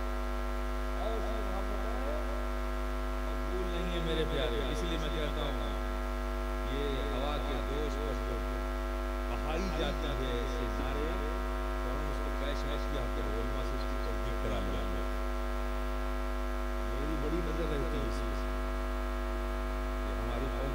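Steady electrical mains hum with a ladder of many overtones in the sound-system feed, with a man's voice speaking faintly beneath it at intervals.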